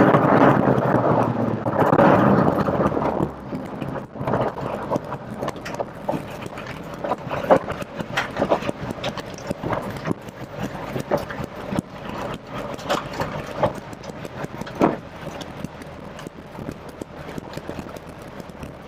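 Rover Metro's 1.8 K-series VVC engine running, heard from inside the cabin, loudest in the first few seconds. After that come irregular knocks and clicks over quieter road and engine noise.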